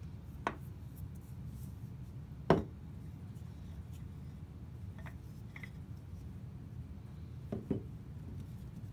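Wooden knocks and clicks as an old wooden mallet head and its handle are handled and set down on a wooden workbench: a sharp knock about two and a half seconds in and a quick double knock near the end, over a steady low hum.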